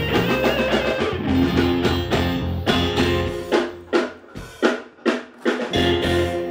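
Band music over a stage PA during a sound check: drum kit, guitar and bass playing. A little past halfway the bass drops out for about two seconds, leaving sharp drum hits and guitar, then the full band comes back in.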